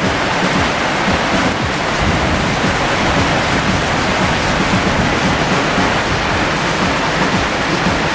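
Typhoon storm noise: heavy rain and wind in a loud, steady rush.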